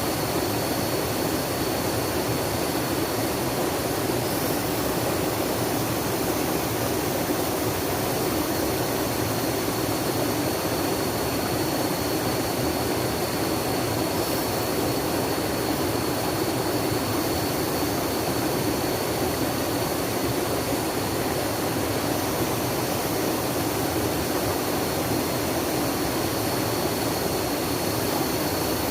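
Steady rush of flowing water, an unbroken even noise that neither swells nor breaks, with a faint steady high tone running through it.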